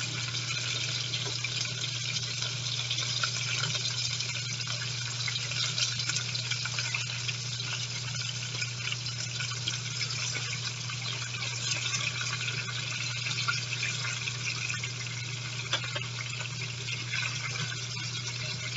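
Chicken strips frying in a skillet of hot oil: a steady sizzle with scattered small crackles and pops, over a low steady hum.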